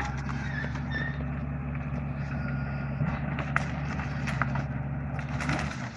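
Bulldozer's diesel engine running steadily, with scattered sharp metallic clicks and short squeaks. The engine sound cuts off abruptly just before the end.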